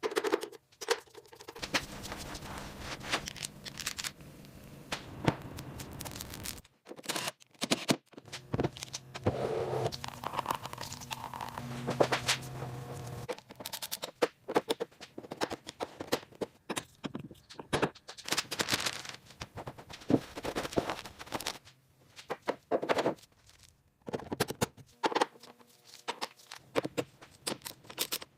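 Many small clicks, knocks and scrapes of hands working on metal parts, with a steady low hum under them that stops about halfway through.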